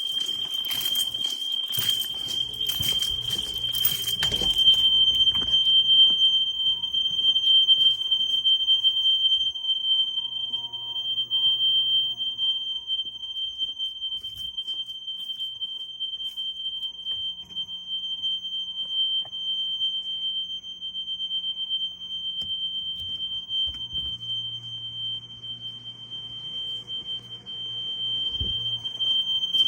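Fire alarm sounder on a Simplex 4020 addressable system, sounding one steady, unbroken high-pitched electronic tone, with a run of knocks over the first few seconds.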